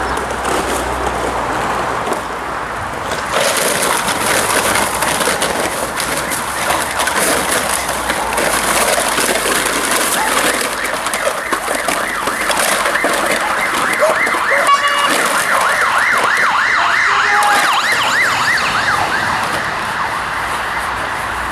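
Plastic streamers on a ring-sport decoy's stick rustling and swishing as he shakes them at a biting dog. Through the middle a rapid, warbling, siren-like tone rises over and over, several times a second.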